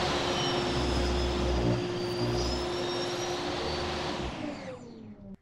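Table saw running as a thin strip is ripped off a wood block held in a sliding jig. About four seconds in the saw is switched off and the blade winds down with a falling whine, cut off abruptly near the end.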